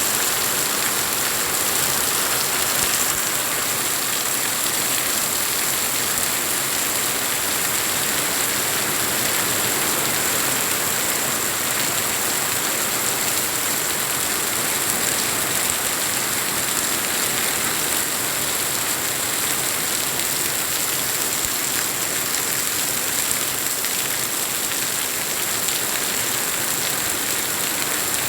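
Steady rain falling and pattering on surfaces, an even hiss with a thin, steady high tone over it.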